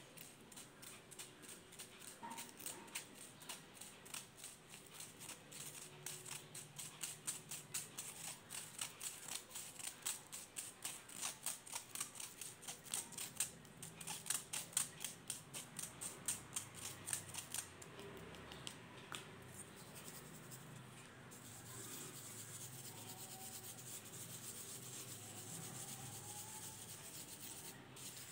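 Mothballs being crushed and rubbed into powder: quiet, rapid scratchy strokes about three a second, growing stronger, then giving way about three-quarters in to a softer, steady rubbing hiss.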